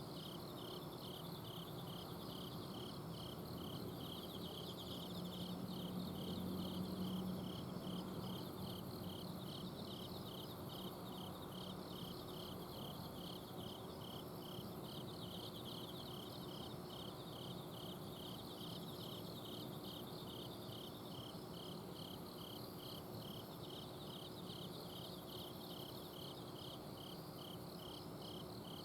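Autumn insects, crickets among them, calling together at night: one chirp repeats evenly about one and a half times a second over finer trills and a high, steady ring. A low, steady hum lies beneath and swells briefly about six seconds in.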